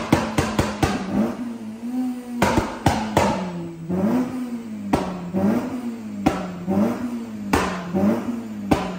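Honda Civic Type R FN2's K20 engine blipped repeatedly from idle on the dyno, about once a second, with the exhaust cracking and banging as each blip falls away, after a fast string of crackles at the start. This is the overrun pops and bangs of a map tuned to spit flames.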